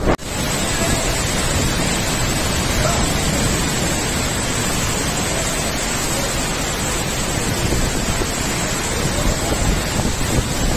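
Torrential rain pouring down in strong wind: a steady, dense hiss with a low rumble of wind buffeting the microphone.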